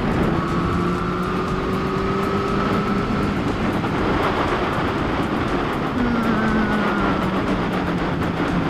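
Motorcycle engine running at road speed, with wind rushing over the action camera. Its pitch climbs slowly over the first few seconds and drops a step about six seconds in.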